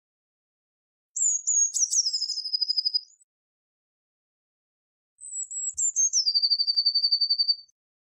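Blue tit singing: two song phrases, about a second in and again about five seconds in, each a few high, thin notes that drop into a fast, even trill.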